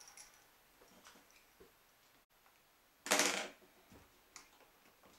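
Small clicks and light taps of a screwdriver and plastic parts as the meat grinder's housing is unscrewed, with one short, louder rustle about three seconds in.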